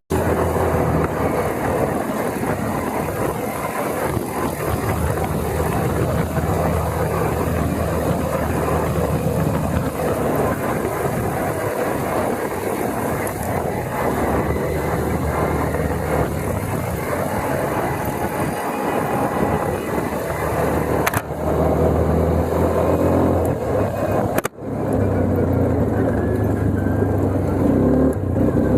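ATV engine running steadily while riding, over a steady rush of wind and ground noise; the sound breaks off for an instant twice near the end.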